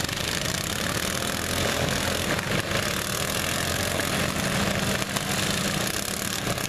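Several racing riding-lawn-mower engines running at once, a steady, continuous engine din.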